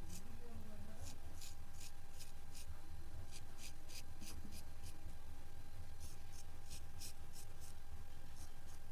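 Straight razor scraping stubble off a wet scalp in quick short strokes, several a second. The strokes come in runs separated by brief pauses.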